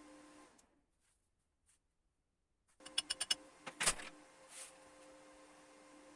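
Homemade belt grinder's 1.8 kW, 2850 rpm electric motor running with the belt, a quiet steady hum. The hum stops abruptly about half a second in, leaving near silence for about two seconds. It comes back about three seconds in with a quick run of sharp clicks, then runs on steadily.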